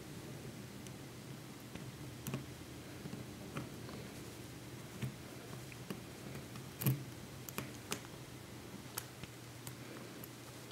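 Scattered light clicks and taps of a small metal tool and an aluminium bumper frame being fitted onto an iPhone 4, the sharpest tap about seven seconds in, over a steady low hum.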